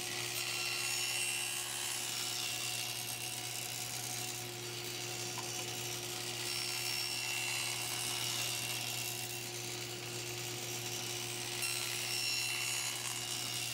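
Table saw running steadily with its blade tilted to 45 degrees, taking light chamfer cuts along the edges of small boards.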